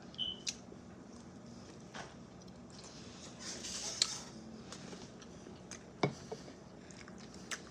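Quiet eating sounds: soft chewing with a few sharp clicks of cutlery against a plate, the loudest about six seconds in.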